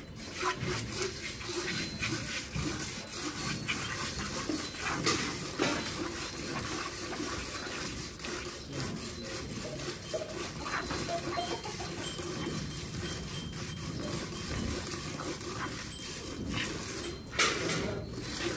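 Hand-milking a Gir cross cow: streams of milk squirting from the teat into a steel bucket that holds foamy milk, in quick repeated spurts.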